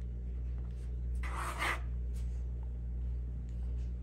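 Pen writing on a paper worksheet on a clipboard, with one longer scratching stroke about a second in and fainter strokes around it, over a steady low hum.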